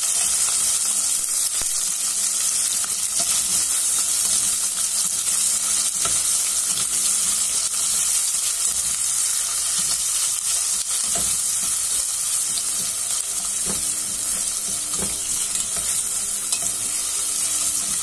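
Sliced onions sizzling steadily in hot oil in a stainless steel saucepan while being stirred with a spatula, with a few faint knocks of the spatula against the pan.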